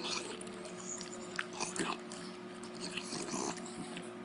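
Beagle chewing a dog treat with wet, irregular lip smacking.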